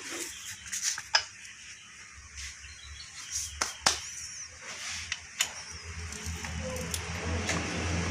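A few scattered sharp knocks, a hammer handle tapping the piston crown to drive a ring-clamped piston through the ring compressor into the cylinder bore. A low steady hum runs underneath.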